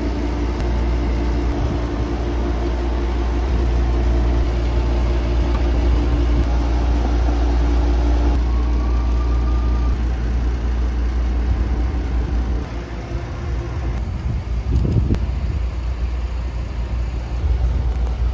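A steady low machine hum, with a hiss over it that eases off about twelve seconds in.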